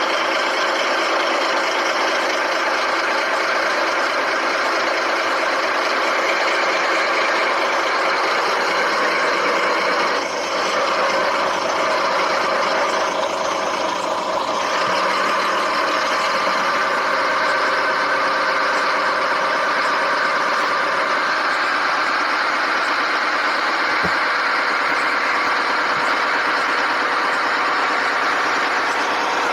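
Steady idling truck-engine sound with almost no deep bass, typical of a toy vehicle's engine sound effect, running on with only a brief dip partway through.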